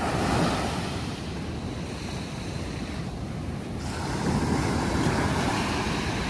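Ocean surf washing onto a sandy beach, with wind on the microphone; the wash swells about four seconds in.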